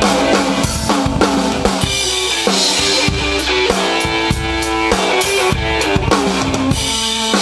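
A drum kit played with sticks in a steady groove, with sharp regular hits and cymbal wash, under held electric guitar notes: a live drum-and-guitar jam.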